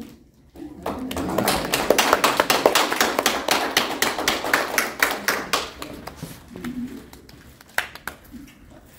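Small indoor audience applauding. The clapping starts about half a second in and dies away after about six seconds.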